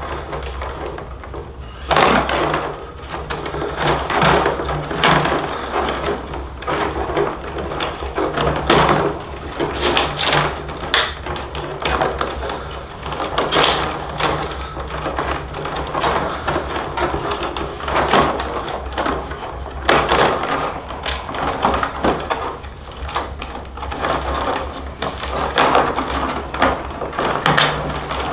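Rawhide lacing being pulled and worked loose through the back of a bison-skin frame drum, an irregular run of rubbing and scraping strokes of lace against dry rawhide, over a steady low hum.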